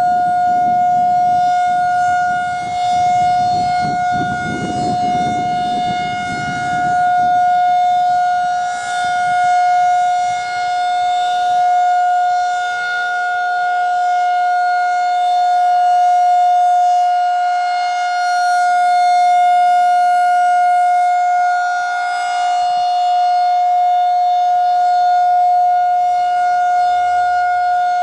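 Federal Signal 2001 rotating outdoor warning siren sounding a steady tone during its monthly test, its level wavering slightly. A low rumble runs under it for the first several seconds.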